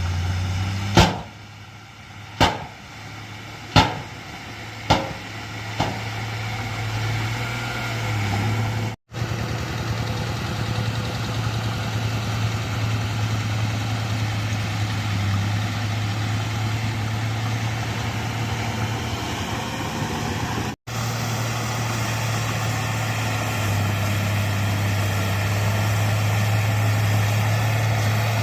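Bulldozer's diesel engine running steadily. Five sharp knocks ring out within the first six seconds, and the sound cuts out briefly twice.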